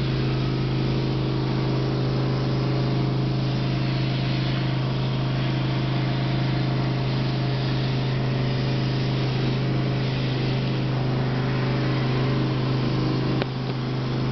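Sandblaster blasting abrasive against a glass panel to carve a freehand design: a steady loud hiss over a constant low machine hum. There is a brief dip with a click near the end.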